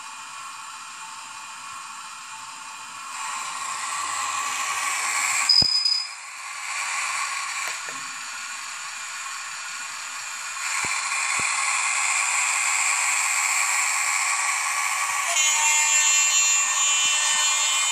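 Sound decoder in an HO-scale Frateschi G12 diesel model locomotive playing diesel engine sound through its small speaker. The engine idles, then runs up about three seconds in as the locomotive moves off, and steps up again twice later on. A brief high tone comes about five and a half seconds in, and there are a few sharp clicks.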